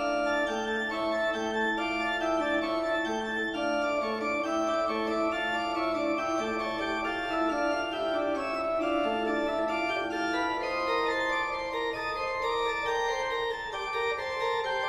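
Organ music: sustained chords with notes held and changing about once a second.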